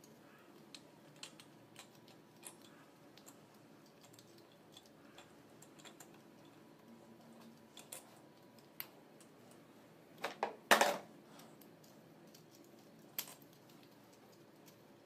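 Scattered small metal clicks and taps as gloved hands fit parts and terminals on the rear housing of an alternator, with a short, louder clatter about two-thirds of the way through.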